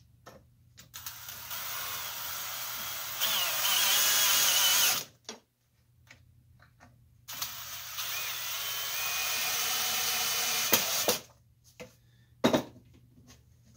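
DeWalt cordless drill/driver running in two long runs of about four seconds each as it works into the wooden jig, with a faint whine over the motor noise; the first run gets louder partway through. A sharp knock follows near the end.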